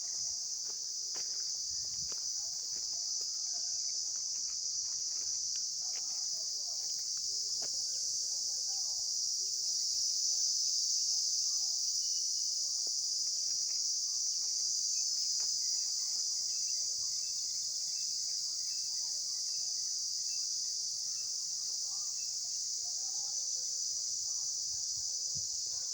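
Steady, high-pitched chorus of insects, an unbroken shrill drone. Partway through, a fainter, evenly spaced chirp repeats about once a second.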